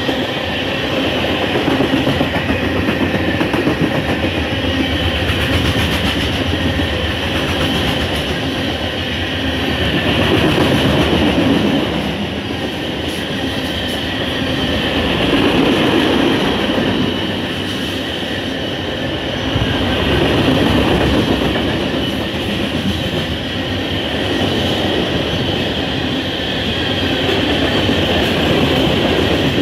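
CSX freight train of tank cars and covered hoppers rolling past close by: steel wheels rumbling and clacking over the rails, the sound swelling and easing every few seconds as the cars go by, with a steady high-pitched squeal running through it.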